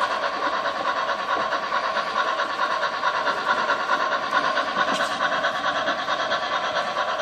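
Bachmann mogul model steam locomotive's onboard sound system playing continuous steam chuffing and hissing through its small speaker, with faint clicks from the wheels on the track.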